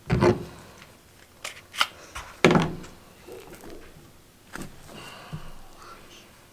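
Knife cutting into a wild rabbit's hide and hands handling the carcass on a truck tailgate during skinning: a couple of dull thumps, at the start and about two and a half seconds in, with lighter clicks and scrapes between and after.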